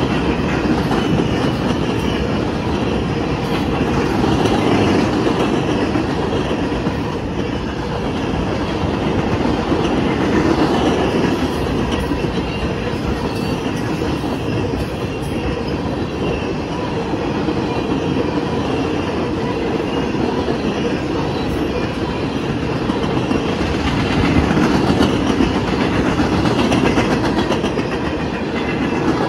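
CSX freight train of empty steel-slab flatcars rolling past at a steady speed: continuous noise of steel wheels running on the rails.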